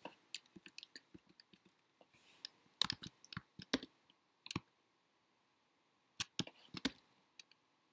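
Scattered clicks of a computer mouse and keyboard, a few at a time in small clusters, with a quiet stretch of about a second around the middle.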